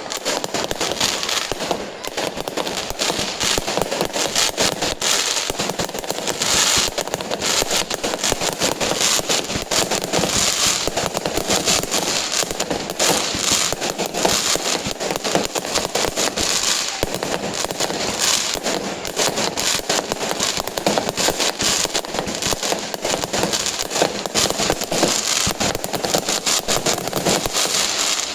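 Festival aerial fireworks going off in a dense, unbroken barrage of crackles and pops.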